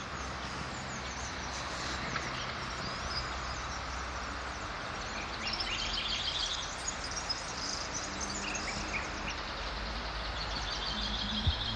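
Birds chirping over a steady outdoor background noise, with a busier run of short high calls around the middle and again near the end.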